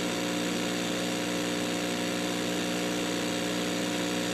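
Steady droning hum of several held tones over a static hiss: the background bed of a mock emergency alert broadcast, left running after the announcement ends.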